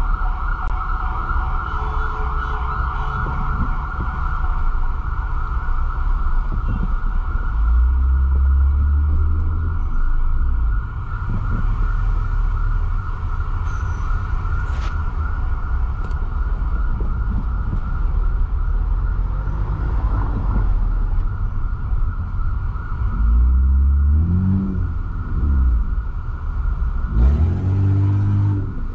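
Ambulance siren wailing in a fast, steady warble over city traffic noise, with low engine rumbles swelling and rising in pitch a few times, most strongly near the end.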